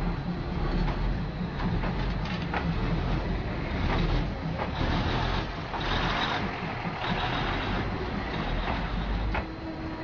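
Passenger train rolling slowly past at very close range, a steady low rumble of engine and wheels. Bursts of hiss come about four to eight seconds in. The rumble falls away just before the end as the last car passes.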